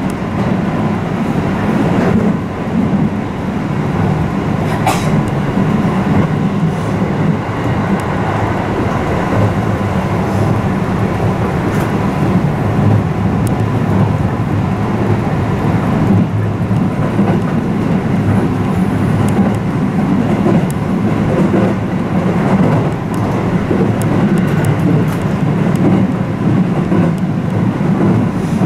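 Electric commuter train heard from inside the passenger car while running between stations: a steady rumble of wheels on rail.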